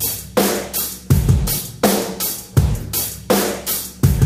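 Drum kit playing a rock song's intro: kick drum and snare with cymbals in a steady beat of about three hits a second.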